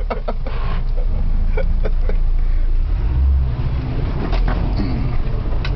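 Toyota Land Cruiser BJ42's diesel engine running as it drives off-road, heard from inside the cab, with sharp knocks and rattles as it bounces over rough ground, several in the first two seconds and a few more near the end.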